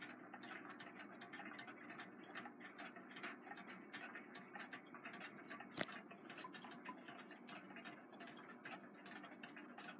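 Faint, irregular light clicking as fingers work thread out of the sewing machine's upper tension assembly, the thread and fingertips catching on the metal discs and check spring, with one sharper click about six seconds in.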